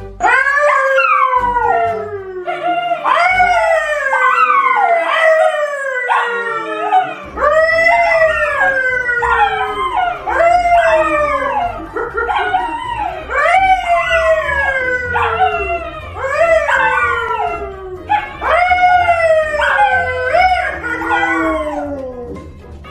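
A man howling with two dogs, a yellow Labrador and a brown poodle, who howl along with him: overlapping long howls, each sliding down in pitch, about one a second, fading near the end.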